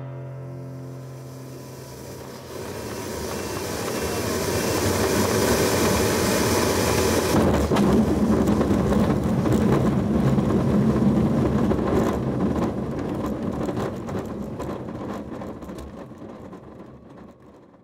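Airflow rushing past a glider on final approach, growing louder. About seven seconds in, the glider touches down on the grass airfield, and the rushing gives way to the main wheel rumbling and rattling over the rough grass as it rolls out. The sound fades away near the end.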